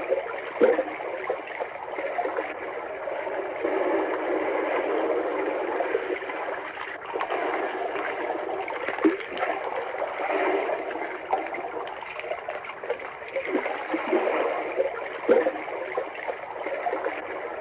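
Water pouring into water: a steady gurgling gush with occasional louder splashes.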